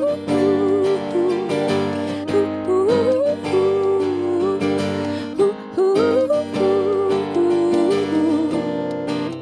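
Acoustic guitar strummed steadily under a woman's sung melody that slides up into held, wavering notes several times, in a live performance of a pop-folk song.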